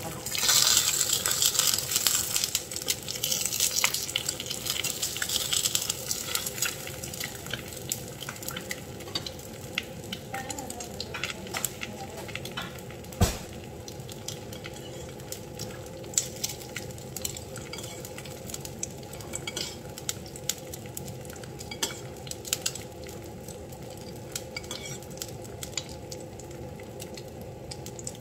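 An egg frying in oil in a nonstick pan: loud sizzling for the first few seconds, then a quieter steady crackle with scattered spitting pops. One sharp clink of a utensil comes about halfway through.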